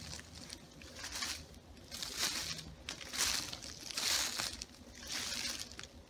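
Footsteps crunching through dry leaf litter and brush on a woodland floor, about one step a second.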